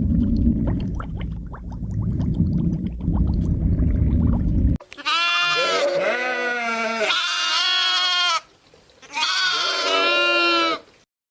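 A low rumbling noise for about the first five seconds, then two long bleats from a sheep or goat-type animal, the second after a short gap and a little shorter.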